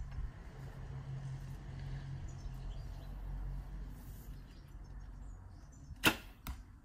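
A 40 lb Tatar-style laminated recurve bow released from full draw: one sharp snap of the string about six seconds in, followed by a fainter knock about half a second later. A low steady rumble runs under the draw before the shot.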